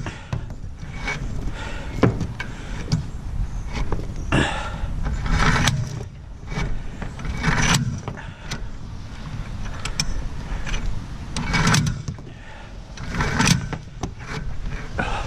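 Cable hoist being worked to lift a riding lawnmower: repeated metallic clicks and rattling bursts every second or two, over a steady low rumble.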